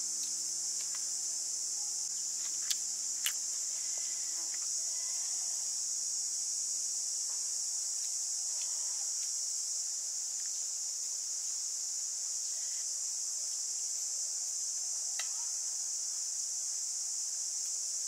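Insects chirring in a steady, high-pitched chorus. Two sharp clicks come about three seconds in.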